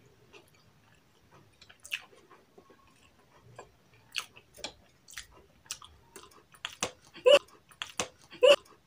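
Close-up chewing and mouth smacks of people eating, a run of short, irregular wet clicks that come faster and louder toward the end.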